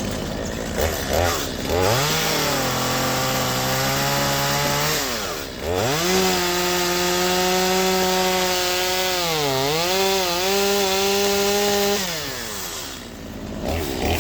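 Stihl two-stroke chainsaw revved up to a steady high whine and held for about three seconds, let off, then revved again higher for about six seconds. Its pitch sags briefly near the end of the second run before it is let back down to idle.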